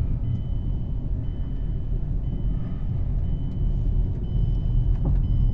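Car driving along, heard from inside the cabin: a steady low engine and road rumble.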